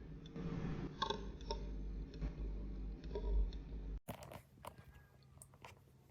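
Scattered small clicks and handling noises over a low rumble. The rumble cuts out suddenly about four seconds in, leaving a few fainter clicks.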